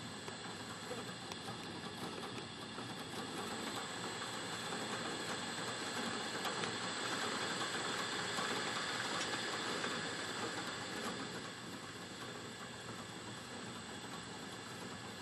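A motor running steadily with a hiss, growing louder from about four seconds in and easing off again near the end.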